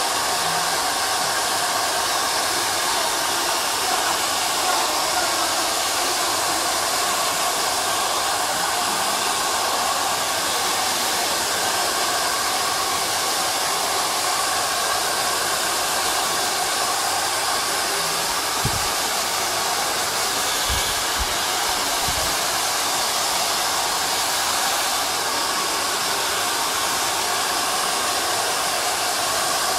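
Handheld hair dryer blowing steadily, aimed at wet hair being blow-dried.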